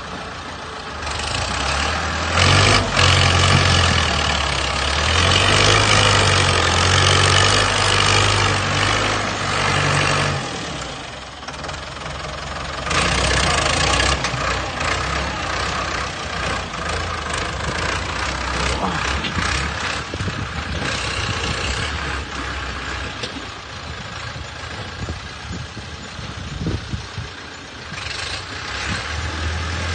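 Heavy earthmoving machine's engine running and working under changing load, its low note shifting up and down. A harsh rushing noise rides over it from about a second in to about ten seconds, and again briefly a few seconds later.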